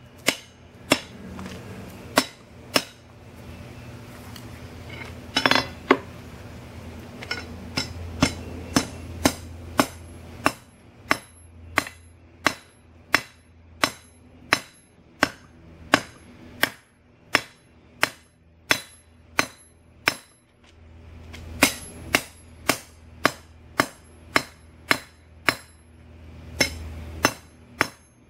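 Hand hammer striking a glowing-hot steel bar on an anvil, each blow sharp and ringing. A few spaced blows at first, then a steady run at about one and a half blows a second, with a short pause about two-thirds of the way through before the hammering resumes.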